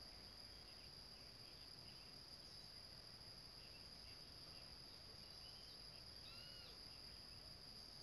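Near silence: faint forest ambience with a steady high-pitched insect trill and a few faint bird chirps about six seconds in.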